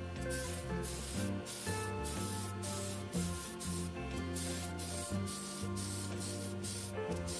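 Spray paint hissing in short repeated bursts, about two a second, as plastic model kit parts on the sprue are sprayed. Background music plays under it.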